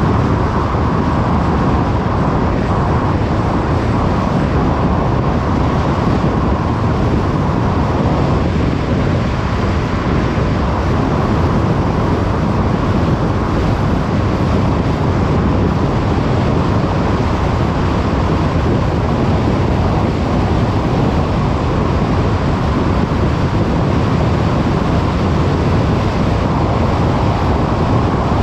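Car driving at a steady pace: a constant rush of road and tyre noise over a low engine hum, with no change in level.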